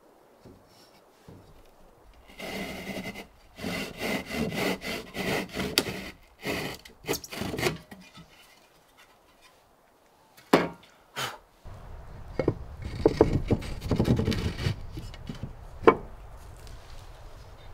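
Handsaw cutting through a white board in a quick run of strokes, then stopping. A couple of sharp knocks follow, then a stretch of rubbing and scraping as the board pieces are handled and fitted, and one more knock near the end.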